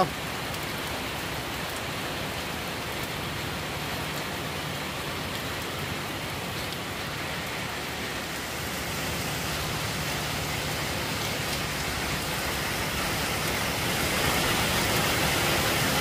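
Heavy rain falling on wet paving and grass, a steady hiss that grows a little louder near the end.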